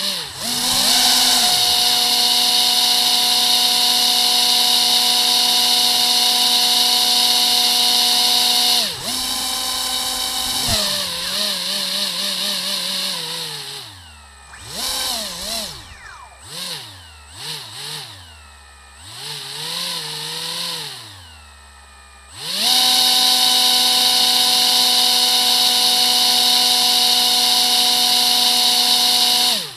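Two quadcopter motors spinning propellers on a homemade RC airboat: a steady high whine at full throttle. About nine seconds in, the throttle is eased and worked up and down, so the whine falls, rises and nearly stops several times. Near the end it returns to a steady full-throttle whine and cuts off suddenly.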